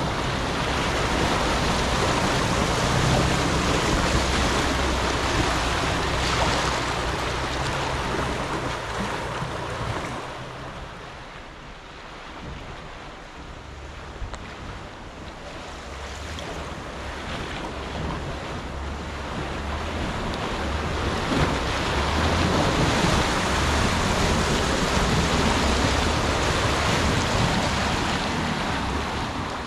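Off-road vehicle engine running at low revs under a loud, steady rushing noise. The noise fades about halfway through and swells again.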